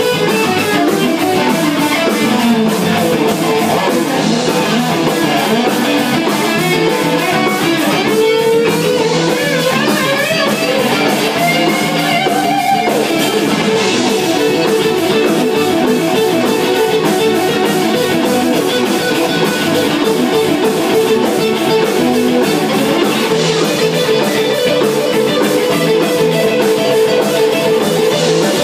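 Live band jamming with electric guitar, guitar notes bending in places over a dense, steady rhythmic accompaniment.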